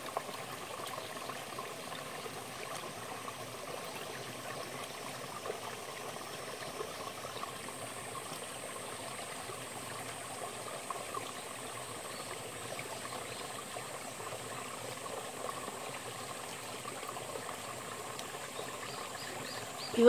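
Shallow mountain stream running steadily over rocks, with a thin high-pitched steady tone above it that grows a little stronger about eight seconds in.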